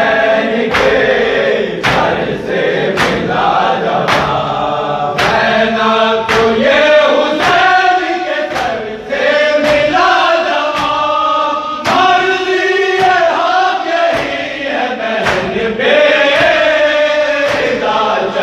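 A group of men chanting an Urdu noha (mourning lament) in unison, with sharp chest-beating slaps (matam) keeping time about once a second.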